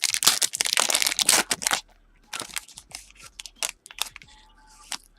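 A Panini Prizm basketball retail pack's foil wrapper being torn open and crinkled, loud for nearly two seconds, then softer scattered crinkles and clicks as the cards are handled.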